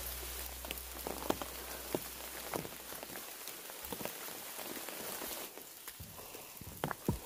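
Steady rain falling: an even hiss with scattered sharp taps of larger drops. The hiss eases slightly after about five seconds.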